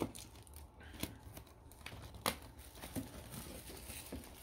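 Plastic shrink-wrap on a cardboard trading-card box being picked at and torn open by hand: quiet crinkling with about five sharp crackles.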